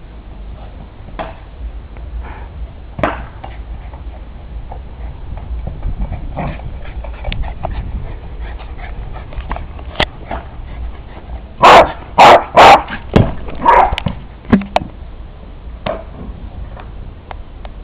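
A dog barking, with a quick run of about five loud barks about two thirds of the way through and scattered quieter yips before and after.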